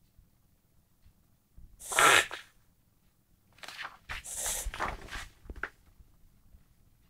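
Whippet reverse-sneezing, the spasm of the soft palate and larynx that drives rapid, forceful inhalations through the nose. One loud breathy burst comes about two seconds in, then a run of several rapid gasps lasting about two seconds.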